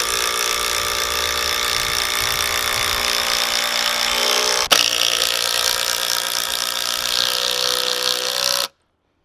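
Cordless impact driver hammering a long 8.5-inch screw through a wooden cross post into a fence post, under sustained load. It breaks off briefly about halfway, carries on, then stops suddenly near the end.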